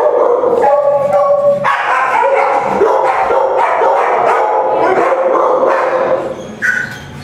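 Many shelter dogs barking and howling at once from their kennel runs, a loud, dense overlapping chorus that thins out near the end.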